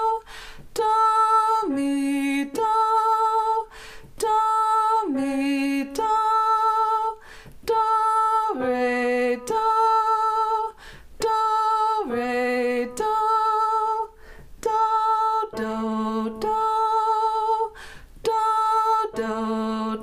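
A woman's voice singing a solfège drill of descending intervals in A major: each figure goes from top do down to a lower note and back up (do–mi–do, do–re–do, then do–do–do down the octave), each sung twice, one figure about every three and a half seconds.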